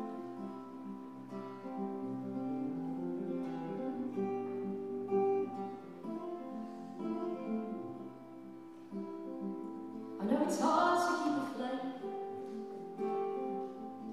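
Acoustic guitar playing an accompaniment of changing notes. About ten seconds in, a woman's singing voice joins it.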